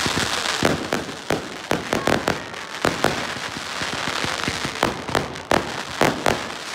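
Fireworks display: a rapid, irregular run of sharp bangs from bursting aerial shells, loud and close together, over a continuous noisy wash between them.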